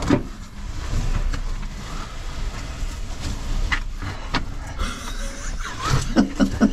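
Cavers crawling over rock in a tight cave passage: scraping and rustling of oversuits and a tackle bag on stone, with a few sharp knocks over a low rumble.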